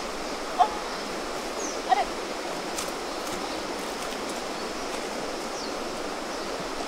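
A stream running steadily, with two short, sharp pitched sounds about half a second and two seconds in and a few faint high chirps.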